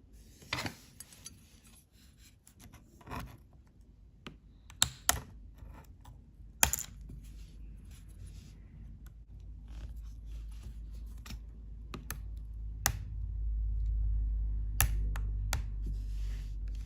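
Keycaps on a 2011 MacBook Air keyboard being changed by hand: scattered sharp plastic clicks and snaps with handling noise, and a low rumble that builds in the second half.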